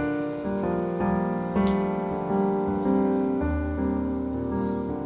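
Background piano music: a gentle melody of single notes and chords.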